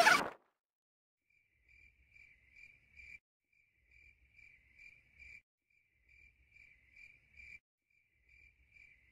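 Crickets chirping in four evenly spaced bursts about two seconds apart, each burst a short run of pulses that grow louder before stopping.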